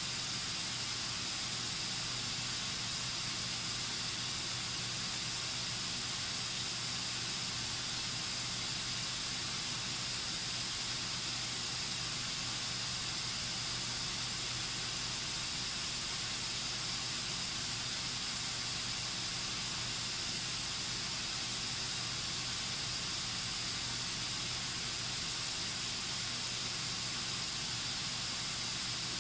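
White-noise test signal played through a Bose SoundLink Mini II Bluetooth speaker: a steady hiss, strongest in the upper treble.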